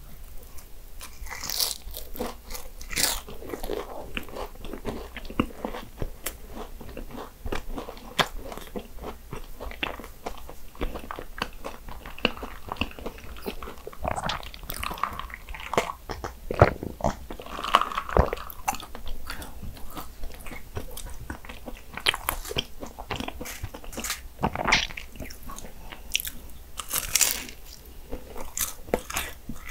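Close-miked biting and chewing of Portuguese egg tarts, the flaky pastry crust crunching and crackling in irregular bursts of sharp clicks.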